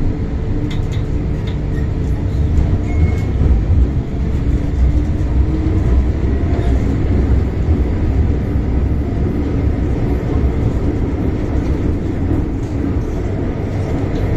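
MTR Island Line M-Train running, heard from inside the passenger car: a steady, loud low rumble of wheels on rail and running gear, with a few faint clicks.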